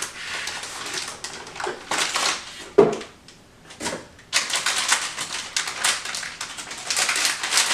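A graphics card's cardboard box and packaging being opened and handled: a run of rustles, scrapes and small clicks, with a brief lull about three seconds in.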